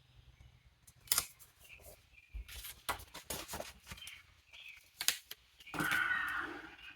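Sticker sheets and paper being handled at a planner: faint crinkles, small taps and the peel of stickers off their backing, in a string of short clicks.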